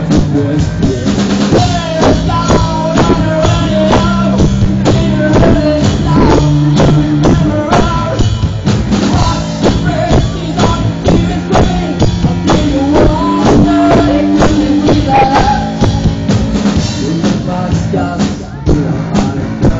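Live rock band playing: drum kit with bass drum and cymbals driving a steady beat under electric guitar and a melodic lead line.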